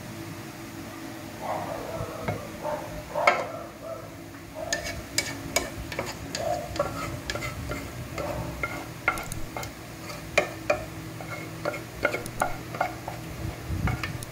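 A spoon scraping and knocking against a pot as thick, creamy rice pudding is scraped out into a glass baking dish: irregular sharp clinks and short scrapes with soft wet plops, the sharpest clinks about three and ten seconds in, over a steady low hum.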